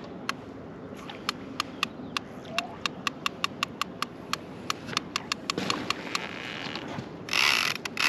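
Fishing reel ticking steadily, about four sharp clicks a second, while a large catfish is played on a bent rod. A short loud rush of noise breaks in near the end.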